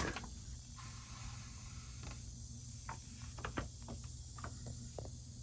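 Faint crinkling and scattered soft clicks of a plastic crawlspace vapor barrier as someone shifts on it, over a steady low hum.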